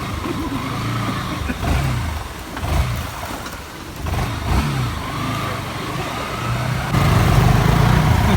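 Motor vehicle engine running on the road, its pitch rising and falling with the throttle, over steady wind and road noise; it gets louder about seven seconds in.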